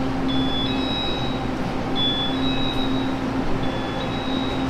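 Two-tone electronic warning chime on a Taiwan Railway platform, a lower note then a higher one, repeating about every second and a half as the departure signal that the train doors are about to close. Under it, the steady hum of the standing Chu-Kuang Express train.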